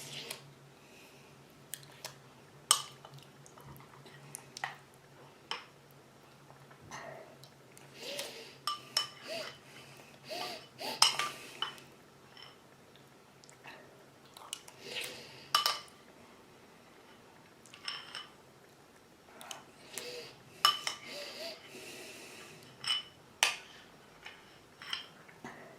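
Cutlery clinking against dishes: scattered, irregular clinks and knocks, some ringing briefly.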